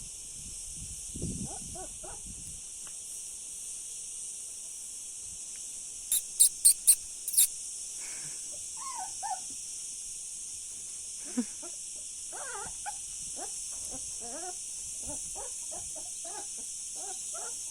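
A dog whimpering in short, squeaky calls that bend up and down in pitch, repeated over and over through the second half, against a steady high hiss. About six seconds in come five sharp, loud, high-pitched sounds in quick succession.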